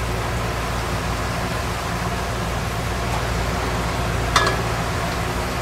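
Steady whoosh and hum of a custom-built exhaust vent hood fan over an outdoor grill kitchen, with one brief metallic clink about four seconds in.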